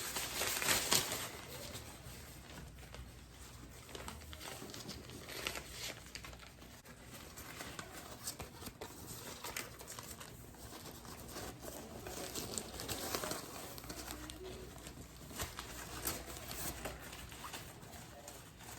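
Crinkling and rustling of plastic parts and packaging being handled, with scattered small taps and clicks; the loudest rustle comes about a second in.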